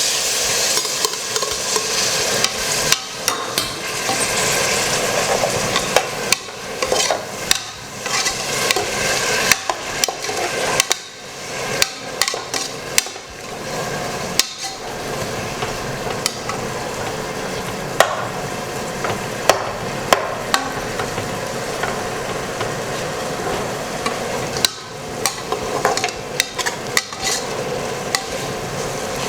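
Chopped tomatoes sizzling with sautéed onions in oil in a pan, while a spoon stirs them with repeated clicks and scrapes against the pan. The sizzle is strongest over the first several seconds, then settles to a steadier, quieter frying.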